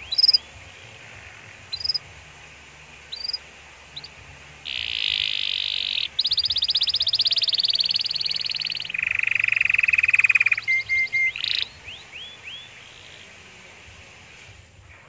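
Domestic canary in full song: a few sharp chirps, then long, very rapid trills of a second to three seconds each, one dropping lower in pitch, ending in a few quick upswept notes.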